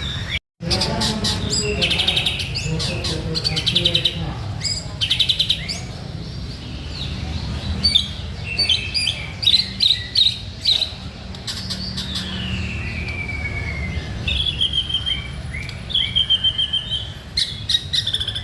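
White-rumped shama (murai batu) singing vigorously: a varied run of loud whistles, fast rattling trills and chattering phrases, including one long falling whistle about two thirds of the way through. The sound cuts out completely for a moment about half a second in.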